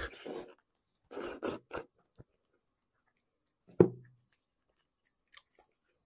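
Close-miked eating sounds: biting into and chewing soft, sticky braised beef trotter tendon, with wet mouth noises in the first two seconds. A single loud thump comes about four seconds in, followed by faint sticky clicks.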